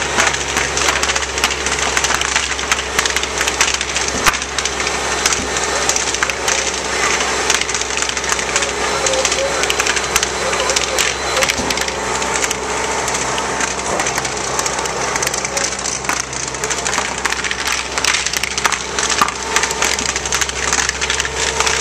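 A fully involved house fire crackling and popping densely and steadily, with one sharper pop about four seconds in. Underneath runs a steady low drone from the fire trucks' engines.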